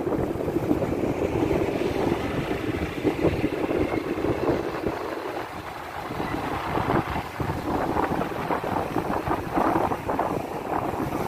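Road traffic noise with wind buffeting the microphone, as heard while moving along a busy city street: a steady, rumbling noise that dips briefly about five seconds in.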